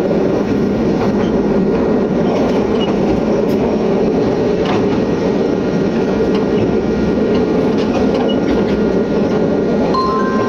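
Loud, steady running noise of a train at speed, heard from inside the carriage. A short, steady higher tone comes in near the end.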